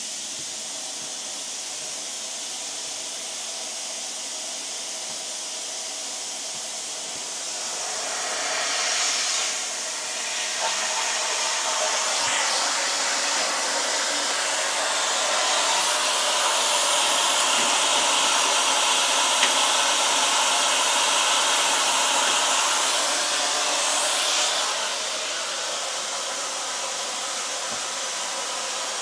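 Steady hiss of air rushing through the small plasma cutter's torch and unit. It gets louder about a third of the way in, louder still past the middle, then drops back near the end.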